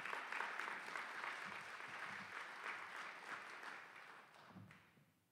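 Audience applauding, a dense patter of many hands clapping that thins and fades away, ending about five seconds in.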